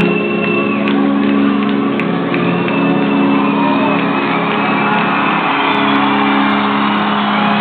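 Live rock band music at a concert, with held low chords and the crowd cheering and screaming over it.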